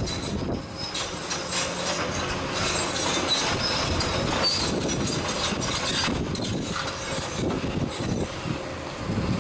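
Cat 320E hydraulic excavator working, its diesel engine and hydraulics running while it tips a bucket of rubble into the steel body of a tipper lorry: a clattering, scraping rush of spoil with a few short squeals, heaviest a few seconds in.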